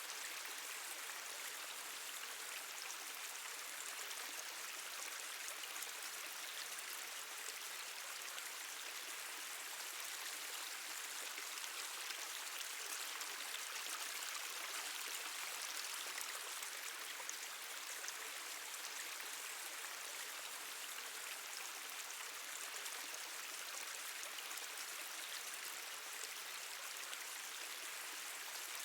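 Water trickling and dripping steadily, a constant hiss of running water with many small drips in it.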